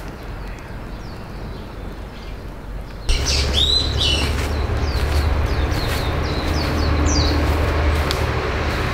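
Wild birds calling in a quick series of short, high chirps over a steady low rumble, both starting suddenly about three seconds in after a stretch of quiet outdoor ambience.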